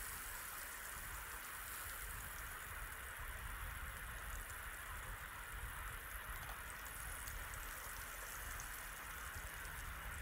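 Salmon fillet frying in oil in a non-stick pan: a steady low sizzle with a few faint crackles.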